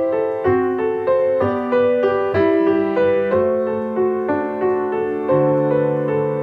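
Slow, gentle solo piano music, with a new note or chord about every half second.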